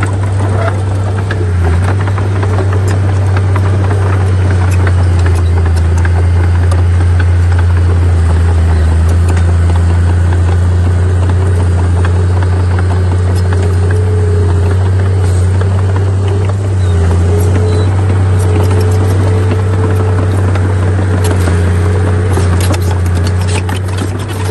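Heavy diesel engine of earthmoving machinery running steadily: a loud deep hum with a higher tone above it that wavers slightly.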